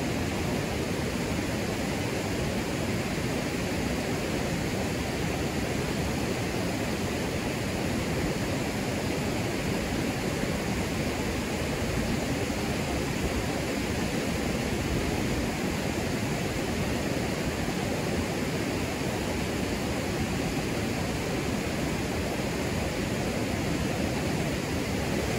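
Steady rushing of white water over river rapids.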